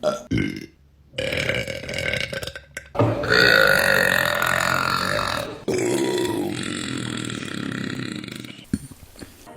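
Women burping, cut one after another: a quick burp, then three long drawn-out burps of about two to three seconds each, and a short one near the end.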